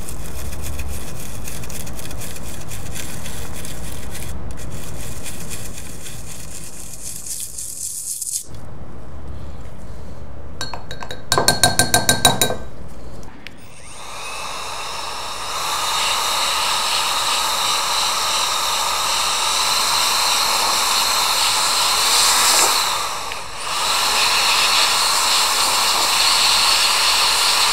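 A small brush scrubbing a laptop logic board clean. About eleven seconds in comes a quick run of about eight sharp rattling pulses. From about fifteen seconds on, a steady hiss of air is blown over the wet board to dry it.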